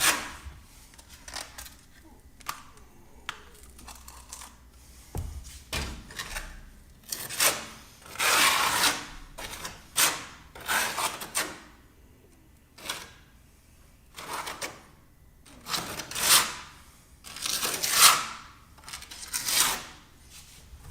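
Mortar being spread and scraped into cracks with a hand tool: a series of short, irregular scraping strokes with quieter gaps between them.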